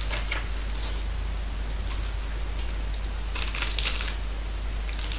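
A snack wrapper being handled and worked open, with a brief crinkle about three and a half seconds in, over a steady low hum.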